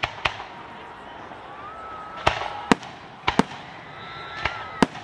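Aerial firework shells bursting overhead: a series of about seven sharp bangs at irregular intervals, some in quick pairs.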